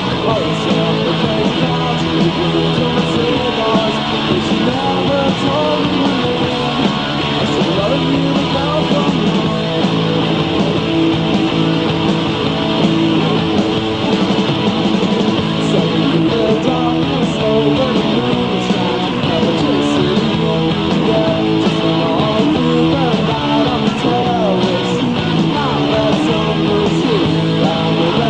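Three-piece rock band playing live: electric guitar over bass and drums, with no singing heard.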